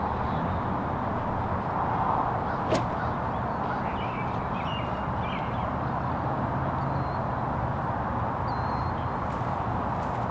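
Outdoor ambience of a steady low background rumble with small birds chirping in short bursts, and one sharp crack about a quarter of the way in.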